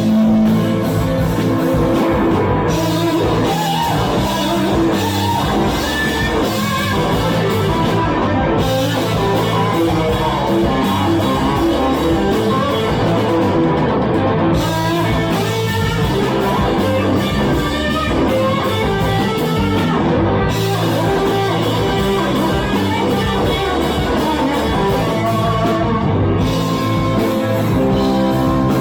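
Rock music from a band, with guitar and drum kit playing steadily.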